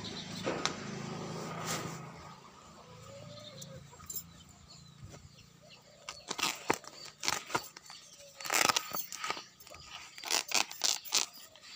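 Coiled plastic hose pipe being handled: irregular scrapes and clicks, loudest about eight and a half seconds in. A low steady hum runs through the first two seconds.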